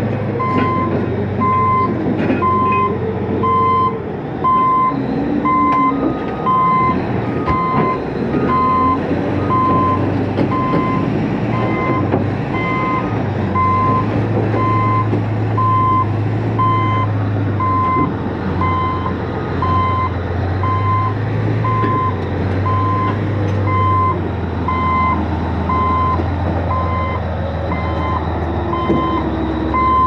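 Caterpillar D10 bulldozer's backup alarm beeping about once a second as the dozer reverses up onto a lowboy trailer, with its diesel engine running underneath and the revs shifting up and down.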